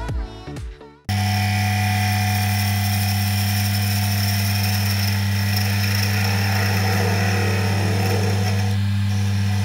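Background music for about the first second, then an abrupt cut to a wood lathe running with a skew chisel shaving a spinning walnut chess queen. The lathe gives a steady hum, with an even rush of the blade cutting wood over it.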